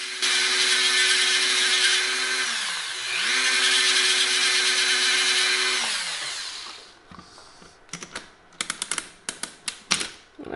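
Dremel rotary tool grinding a metal lever inside a Friden STW-10 mechanical calculator, a high-pitched motor whine with grinding noise that dips in pitch and recovers about three seconds in, then winds down about six seconds in. Light clicks and taps follow near the end. The grinding removes metal from a worn carry lever so that it will latch.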